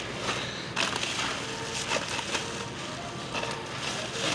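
Faint background music with crinkling and a few short clicks, typical of snack packages being handled.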